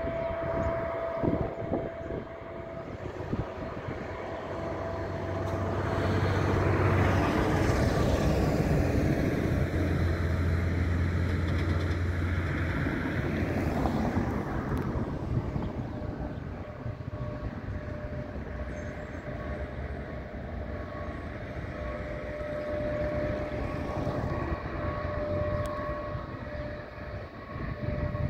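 Jet airliner engines: a rushing jet noise swells over several seconds to its loudest in the middle, then eases off, with a steady high engine whine in the second half.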